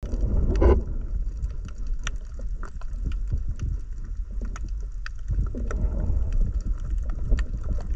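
Underwater ambience picked up by an underwater drone: a steady low rumble of moving water with scattered sharp clicks and a louder thud just under a second in.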